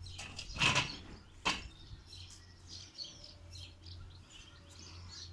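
Birds chirping in short calls, with two brief bumps or rustles about a second apart near the start, the louder of the two first.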